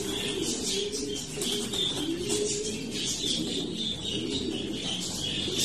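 Racing pigeons in a loft cooing, repeated low calls, with higher chirping running over them.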